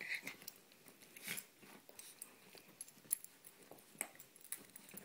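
A husky and a miniature pinscher play-wrestling: jaws snapping and mouthing at each other with irregular clicks and scuffles on the bedding.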